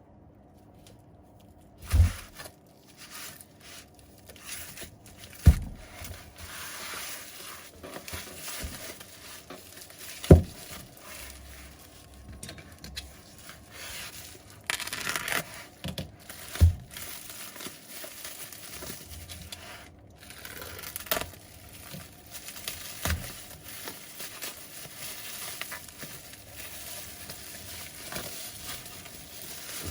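A phone and small tools being handled on a hard work surface during repair: five or six sharp knocks as things are set down or tapped, with scraping and crinkling between.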